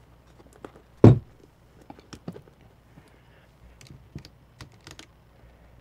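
Scattered light clicks and taps with one louder thump about a second in: handling noise from a camera and a wristwatch held up close to the lens.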